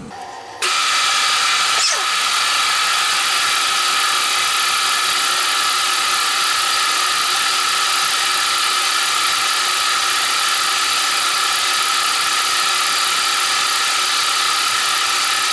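Horizontal milling machine running, its gear cutter cutting a tooth slot in a pinion shaft under coolant: a steady, loud machining whine that starts abruptly about half a second in.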